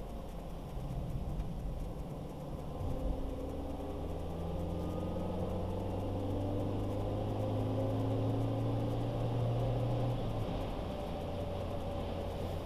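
Car engine pulling under steady rumble from the road, its pitch rising slowly for several seconds, then dropping away about ten seconds in as the car shifts gear or eases off.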